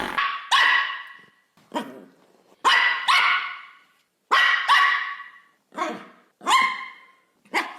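A dog barking about ten times, singly and in quick pairs, each bark trailing off in an echo.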